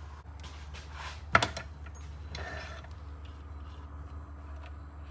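Workbench cleanup: small handling noises and light clicks, with one sharp knock about a second and a half in, over a steady low hum.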